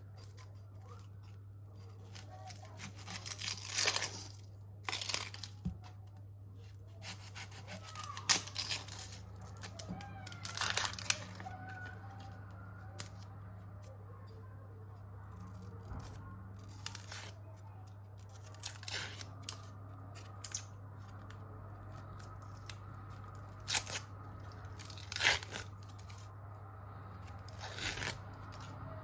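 About ten short scraping and tearing noises, irregularly spaced, over a steady low hum.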